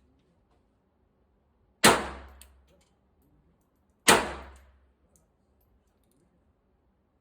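Two pistol shots from a S&W M&P Bodyguard .380, fired singly a little over two seconds apart, each followed by a short echoing decay.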